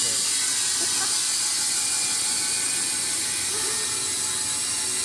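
Wood-Mizer industrial band sawmill running with its blade sawing through a log: a steady, loud, high-pitched hiss of machinery.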